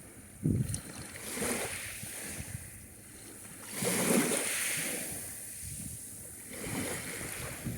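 Sea surf: small waves rolling in and breaking on the shore, swelling about every two to three seconds, loudest about four seconds in.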